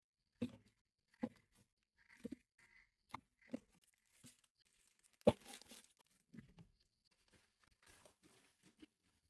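Wrapped soap bars and small cardboard soap boxes set down one after another in a wooden drawer: a string of light knocks about a second apart, the loudest about five seconds in. Near the end, plastic packaging crinkles.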